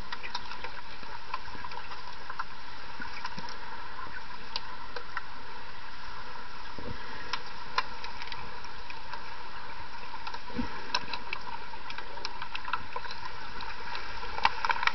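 Underwater sound of a pool during an underwater hockey game: a steady hiss with scattered sharp clicks and knocks from hockey sticks and the puck on the tiled pool floor, and a cluster of louder clicks near the end.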